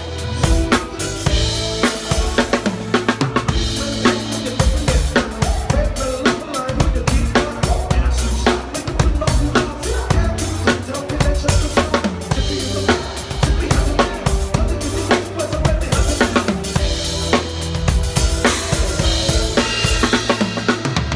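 Drum kit played along to a pop backing track: steady kick and snare strokes over the song's recorded music.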